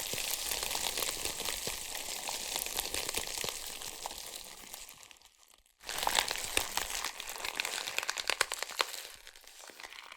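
Crunching, crackling sound effect made of many small cracks. It comes in two stretches with a brief silence about five and a half seconds in.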